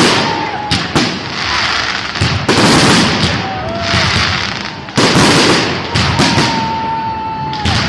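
Fireworks display: loud bursts every second or two, each followed by dense crackling, with a few thin whistling tones, one held for over a second near the end.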